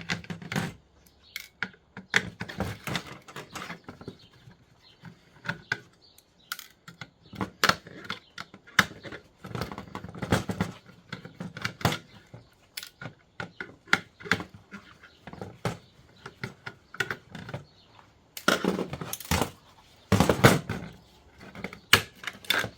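Irregular clicks, taps and clatters of the metal and plastic parts of a Dell Wyse thin client being handled and worked loose during dismantling, with a louder run of knocks and rattles a few seconds before the end.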